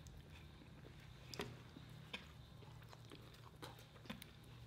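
Faint chewing and wet mouth clicks from people eating with their hands, a handful of short sharp clicks over a steady low hum.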